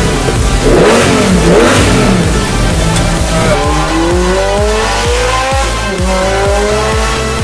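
Lamborghini Gallardo V10 blipped, revs swooping up and down several times in quick succession. Then a Ferrari F430 V8 accelerating hard, revs climbing, dropping at an upshift a couple of seconds later, then climbing again.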